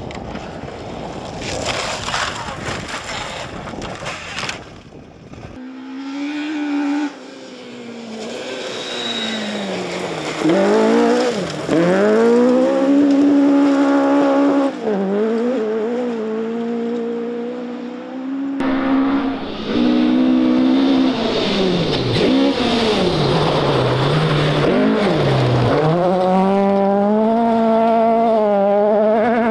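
Rally car engines at full throttle on a loose gravel stage. The revs climb and drop over and over with gear changes and lifts, over the hiss of gravel thrown from the tyres. The sound cuts abruptly between cars twice, and in the last stretch the car is a Fiat 131 Abarth.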